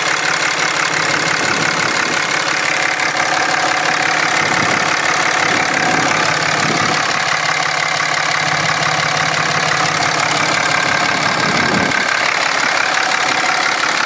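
Dodge Ram 2500's 6.7-litre Cummins turbo-diesel inline-six idling steadily, heard from over the open engine bay.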